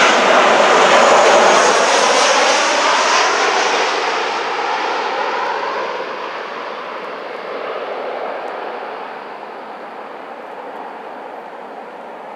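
Twin-engine jet airliner on landing approach passing overhead: a loud engine roar with a whine that drops in pitch as it goes by, then fades away.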